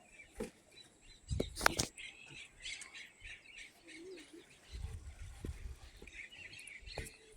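Small birds chirping in the background, with a few sharp clicks or knocks about a second and a half in, the loudest sounds here, and a low rumble through the second half.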